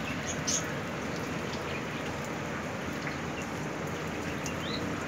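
Steady rain falling on garden plants and leaves: an even hiss, with a few sharper drop hits about half a second in.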